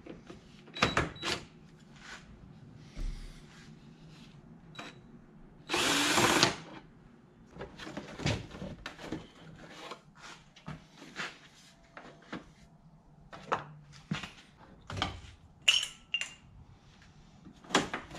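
Cordless drill running briefly about six seconds in, backing out the bolts that hold a compact tractor's footwell panel. Around it are scattered clicks and clanks of metal parts and tools being handled.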